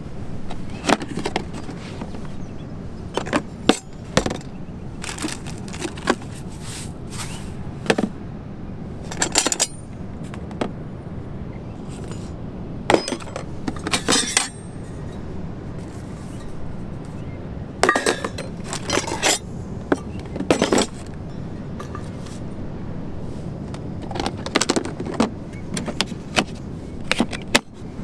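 Irregular clattering and clinking as a plastic storage tub of camp kitchen gear is opened and rummaged through: a plastic lid and tray knocking, and bottles and metal utensils chinking against each other. Under it is a steady low background noise.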